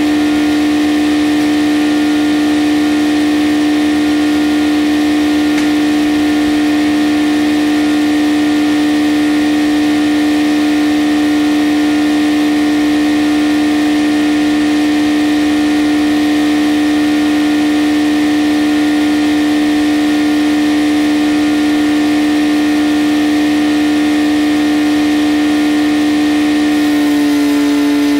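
Belt-driven circular sawmill running free with no cut: its power unit and spinning blade give a steady pitched drone. The pitch dips slightly near the end as the lever is pulled to send the carriage toward the blade.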